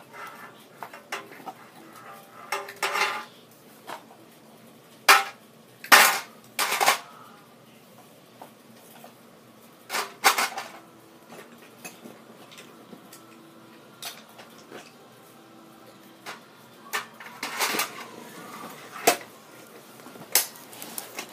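Small toys knocking and clinking against a metal tin box as a child handles the tin and puts toys into it: scattered clanks in short clusters with quiet gaps between.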